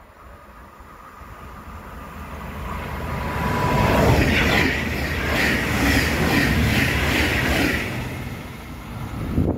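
Train approaching and passing close by, growing louder over about four seconds, then loud rail and wheel noise with a repeating rhythm as the cars go by, easing off near the end.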